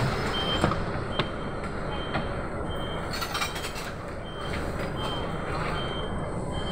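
City bus running, heard from inside, with an electronic beep repeating about every 0.7 seconds over the vehicle noise. A few sharp knocks in the first couple of seconds.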